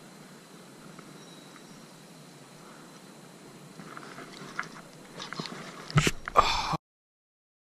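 Rustling and handling noise close to a chest-mounted camera's microphone, building from about four seconds in to loud knocks about six seconds in as something brushes the camera. The sound then cuts off abruptly to dead silence.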